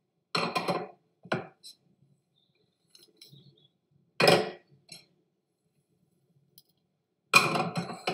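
Kitchen clatter: four short bursts of bowls and utensils knocking and clinking against a large metal mixing bowl as ground spices are added to raw mince.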